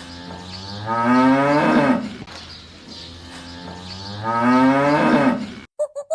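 A cow mooing twice: two long, swelling moos about three seconds apart, each rising in pitch. The sound cuts off abruptly near the end.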